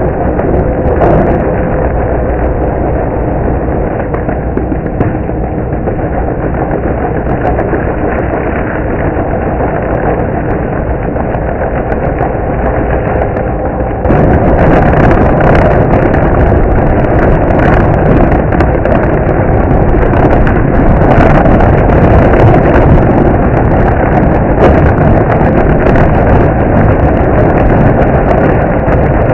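Engine of a remote-control stump grinder running steadily. About halfway through it suddenly gets louder and harsher, with crackling added on top.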